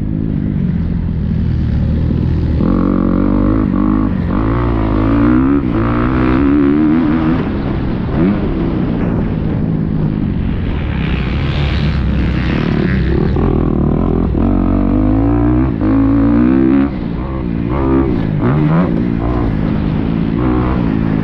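Motocross bike engine heard from the rider's helmet camera, revving up and backing off again and again as the bike is ridden around a dirt track.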